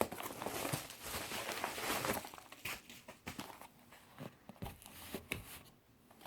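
Packaging being opened by hand: a steady stretch of rustling and tearing for about the first two seconds, then scattered small rustles and clicks as the wrapping is handled.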